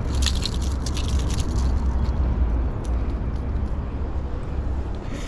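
A steady low rumble throughout, with small clicks and rattles in the first second and a half as the fish lip-grip and lure are handled.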